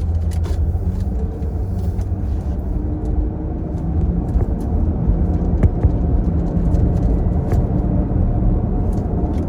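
Car engine running with a steady low rumble, heard from inside the cabin, with a few faint clicks.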